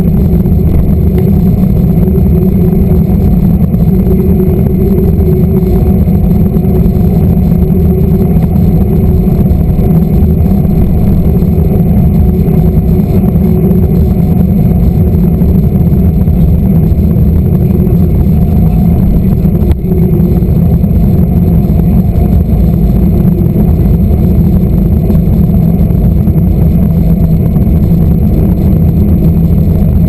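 Steady, loud rumble of wind buffeting the microphone of an action camera mounted low on a moving mountain bike, mixed with tyre noise on asphalt. A brief click about two-thirds of the way through.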